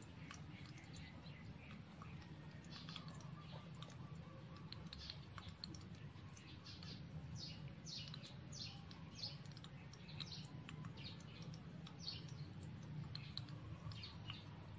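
Small birds chirping with quick, repeated downward-sweeping calls, over the faint crackle of a shrimp fritter (okoy) frying in shallow oil in a small wok.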